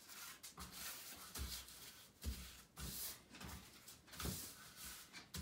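Faint, irregular rustling and soft knocks of hands handling dry tobacco leaf on a work table, with a few louder thumps among them.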